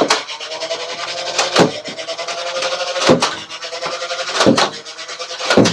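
Nerf Ultra One motorized blaster with its flywheel motors spun up and whining, firing a dart about every second and a half: five sharp shots, the whine dipping in pitch at each and climbing back.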